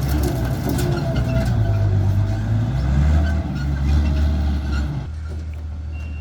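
Heavy diesel construction-machine engine running with a deep, steady rumble that eases off about five seconds in. A reversing beeper starts just at the end.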